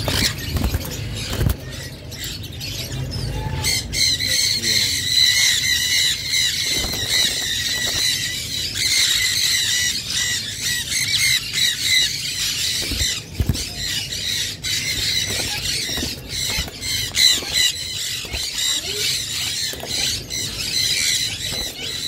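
A group of Indian ringneck parakeets screeching continuously in shrill, high-pitched squawks, getting louder about three and a half seconds in, with scattered clicks and wing flaps.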